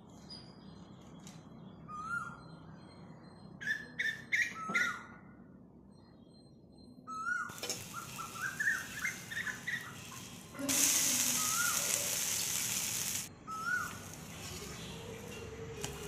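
Birds chirping: short rising-and-falling calls every few seconds, with a quick run of chirps about halfway. From about halfway, oil sizzling on a hot dosa tawa, loudest for a couple of seconds.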